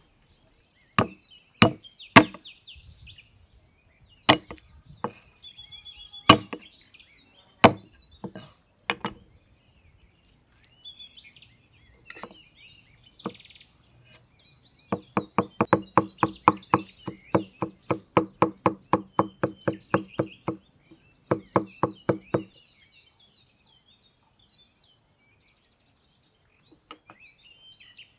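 Cleaver striking a round wooden chopping board while mincing garlic. First comes a series of separate sharp knocks. About fifteen seconds in, it becomes rapid, even chopping at about five strokes a second for some seven seconds, then stops.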